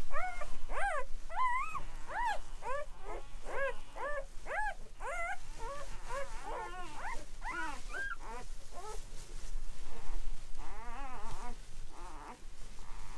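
Newborn Great Pyrenees puppies squealing and whimpering: many short, high cries that rise and fall, one after another, then a longer wavering cry about ten seconds in.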